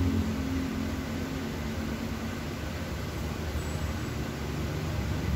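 Steady low background rumble with a hiss over it, with no distinct events.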